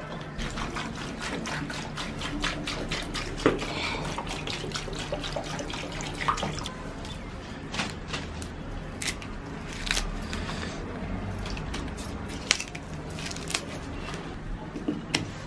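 Hands handling wet food in steel bowls, giving many small wet crackles and squelches: first chopped raw pork pieces being sorted, then, partway through, washed leafy greens being pressed and turned.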